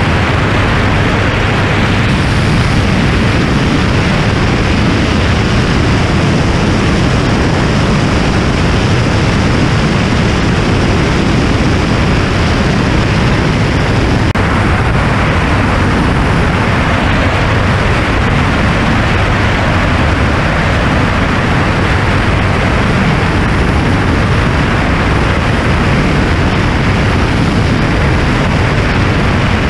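Steady drone of a homebuilt light aircraft's engine and propeller in cruise flight, heard from the aircraft itself under heavy wind noise on the camera's microphone.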